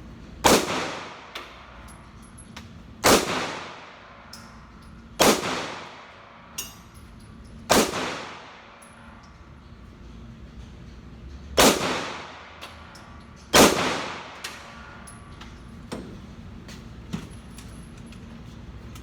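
Six gunshots at uneven intervals over about thirteen seconds, each with a ringing, echoing tail, and a few fainter clicks and knocks between them.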